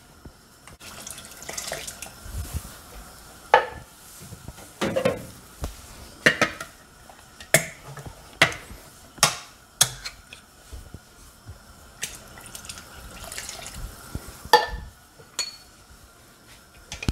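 Canned chicken broth being poured into a stainless steel pot of soup stock, liquid splashing in, amid a series of sharp metal clinks and knocks from the cans and pot.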